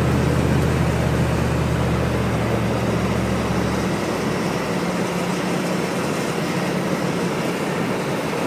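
Pickup truck cab noise while driving: steady road and wind noise under a low engine drone. The drone drops out about four seconds in, leaving a fainter, higher hum.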